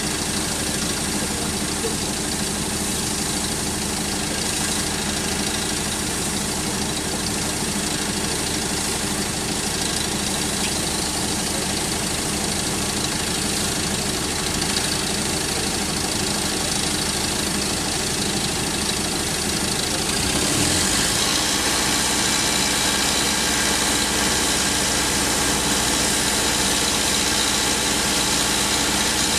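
Diesel engine of a Liebherr R 950 Demolition excavator running steadily; about twenty seconds in it gets a little louder.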